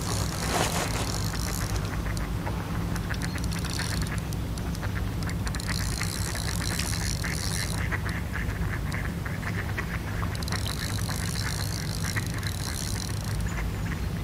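Large spinning reel being wound in while a small carp is played on the line: a steady gear whir with rapid clicking, broken by several bursts of high-pitched buzzing lasting one to two seconds each.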